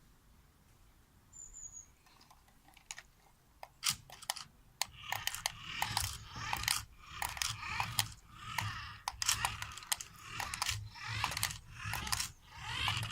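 Plastic clicking and rattling from a Lego Technic RC model on the move. A few sharp clicks come about four seconds in, then crunchy rattling bursts about once a second with a low thump under each.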